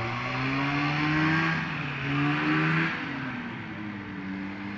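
A small aircraft engine revving, its pitch climbing and then falling back, with sudden changes in note about a second and a half in and again about three seconds in as the throttle is moved.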